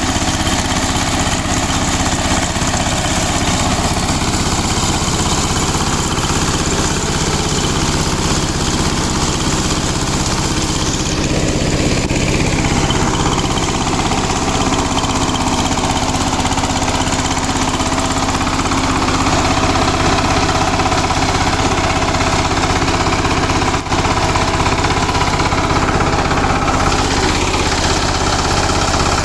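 KMW Kirloskar Mega T 15 hp power tiller's diesel engine running steadily as the tiller works the field with its rotavator.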